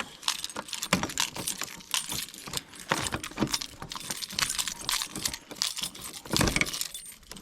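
Small metallic clicks and rattles as twist-lock fasteners are undone and the cooler screens on a mini excavator are handled, with a louder clatter about six seconds in.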